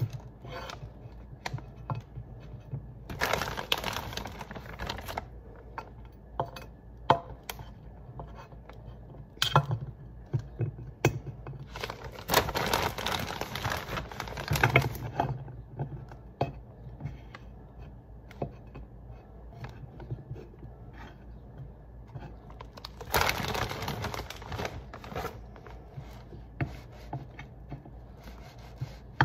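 A plastic bag of chicken bites crinkling in three long bursts as a hand reaches into it, with light clicks and knocks of the breaded chicken pieces being set down into a metal baking pan.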